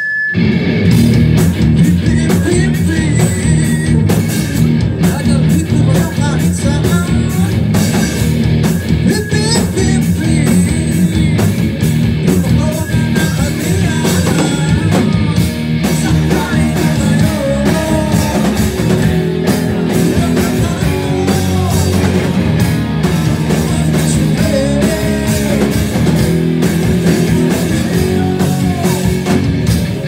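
Rock band playing live: electric guitars, bass guitar and drum kit, loud and continuous.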